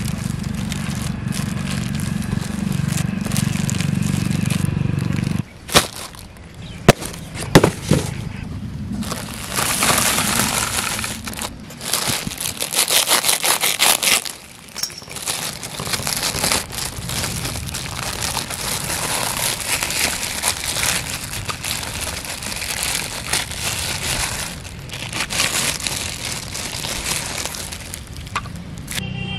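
Clear plastic wrapping crinkling and rustling as a toy tractor is handled and pulled out of its bag, with a few sharp clicks of the plastic toy a few seconds in. A steady low hum runs underneath for the first five seconds, then cuts off.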